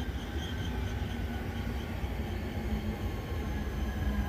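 Approaching trains: a steady low rumble with a humming tone that grows stronger and rises slightly near the end, as a GB Railfreight Class 66 diesel locomotive comes up the line and an electric passenger train draws in.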